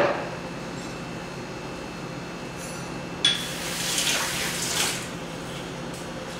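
Water from a kitchen tap running into the sink for about two seconds, starting suddenly about three seconds in, over a steady low hum.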